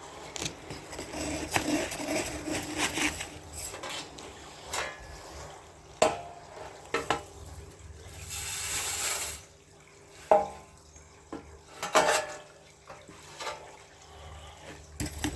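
Metal objects and tools being handled: scattered clinks and knocks, with a short hiss about eight and a half seconds in.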